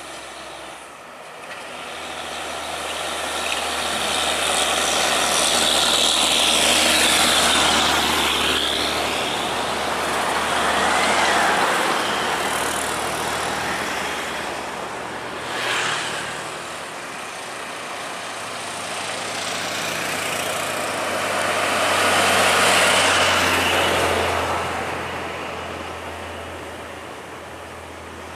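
Highway traffic with heavy trucks, cars and motorcycles passing one after another. Engine and tyre noise swells and fades with each pass over a steady low engine drone. The loudest passes come about seven seconds in and around 23 seconds, with a short, sharp pass near 16 seconds.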